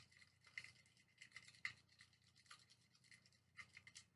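Faint, irregular scratching and ticking of an old pen stirring a thick shampoo-and-salt slime mixture.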